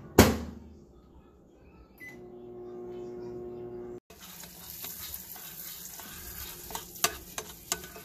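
Microwave oven door shut with a loud clack, then a short beep and the oven's steady hum as it runs. After a cut, a metal spoon scrapes and stirs the ghee-roasted semolina in a glass bowl, with sharp clinks against the glass.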